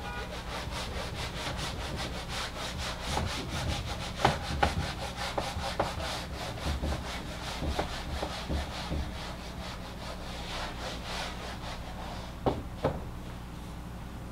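Whiteboard being wiped with an eraser: quick, steady back-and-forth rubbing strokes, with a few light knocks against the board.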